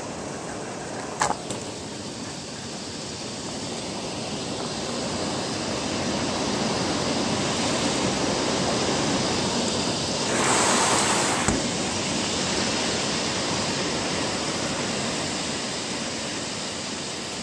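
Steady rain with a long roll of thunder that swells over several seconds, peaks about halfway through, then slowly fades.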